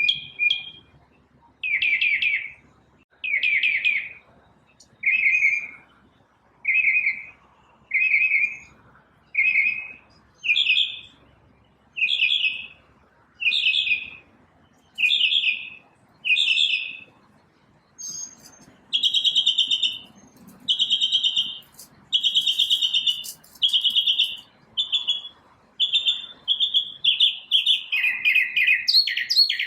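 A single bird singing, repeating short chirping phrases about every second and a half, each phrase a little different in pitch. From about two-thirds of the way through, the phrases come faster, with hardly a gap between them, and sit a little higher.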